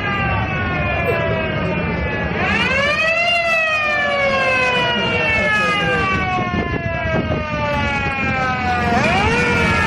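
Siren of a 1960 Italian ambulance wailing. The pitch slides slowly down, rises quickly about two seconds in, falls slowly for about six seconds, then climbs again near the end, over a low rumble.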